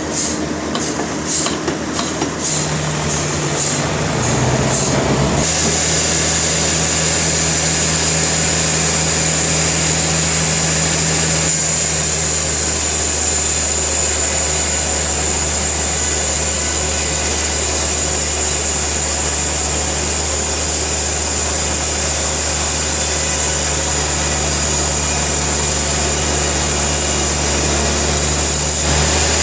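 Sawmill machinery running steadily with a constant hum and a thin high whine, after a clatter of rapid knocks in the first few seconds.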